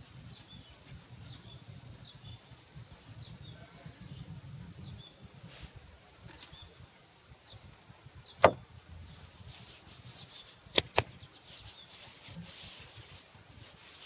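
Handling sounds while salting a raw whole pig on a rebar rack: one loud sharp knock about eight seconds in, two quick clicks a couple of seconds later, then a soft high rustle. Faint short chirps repeat about every two-thirds of a second in the first half.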